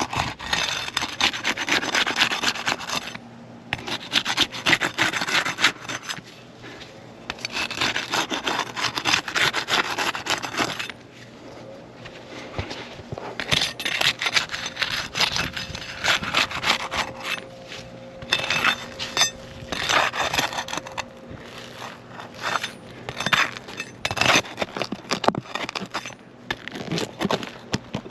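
Pry bar scraping and rasping under sealed-down asphalt roof shingles in bursts of fast repeated strokes with short pauses, as the shingle tabs are worked loose to get at the nails.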